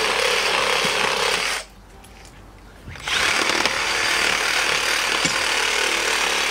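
Cordless reciprocating saw cutting through cactus roots in the soil, running steadily, stopping for about a second and a half shortly after the start, then starting up again and cutting on.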